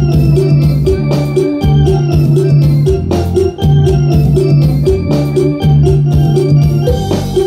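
Instrumental dance music on an electronic keyboard with an organ sound, over a steady bass line and a drum-machine beat.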